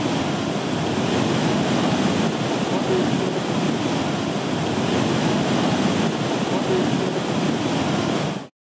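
Karst spring's river in spate after heavy rain, crashing down a cascade as whitewater: a steady, dense rush of water that cuts off abruptly near the end.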